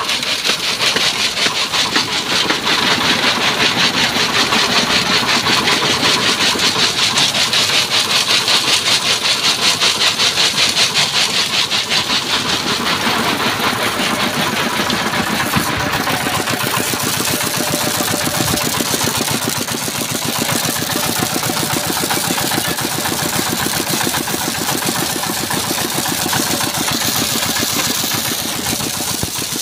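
A machine engine running steadily with a fast, even chugging rhythm. A high hiss over it fades out about halfway through.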